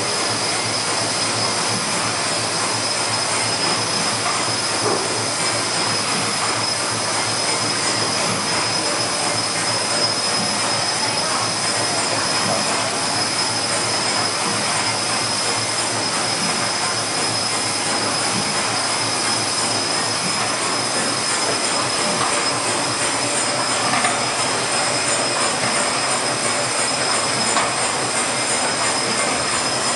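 ST Cervia steam tug's 1000-plus-horsepower steam engine turning over on steam piped from a boiler on the quayside. It makes a steady, dense mechanical din with a constant high-pitched whine over it.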